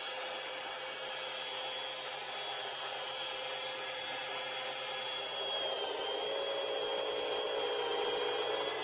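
Power drill running steadily as it drills into an aluminium printer bed plate, its whine dipping slightly twice in the second half as the bit takes load.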